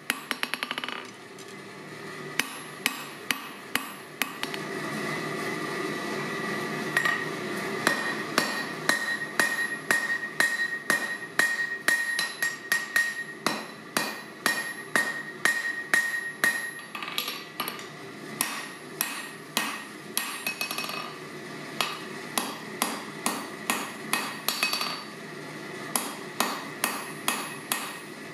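Hand hammer striking a red-hot steel bar on an anvil in a steady run of blows, about two to three a second, with a short pause near the start. A clear ringing tone hangs between the blows for much of the middle.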